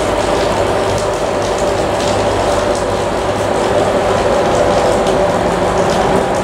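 KiwiRail freight train rolling past: a loud, steady rumble with a held hum and scattered clicks.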